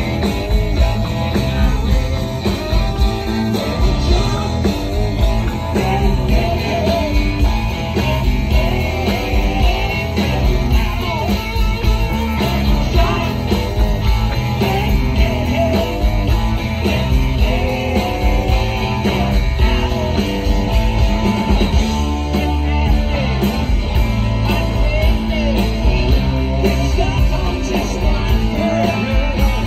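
Live rock band playing a song: two electric guitars, electric bass and a drum kit, with steady bass and drums underneath.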